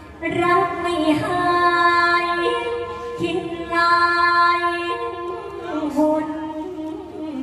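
A woman singing a Thai sepha-style melody on long held notes that step and slide between pitches, with short breaks for breath.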